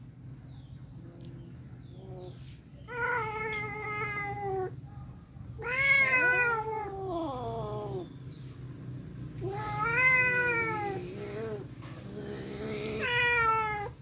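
Domestic cats yowling in a tense standoff: four long, drawn-out yowls about two seconds each, the middle ones wavering and falling in pitch, the last one rising.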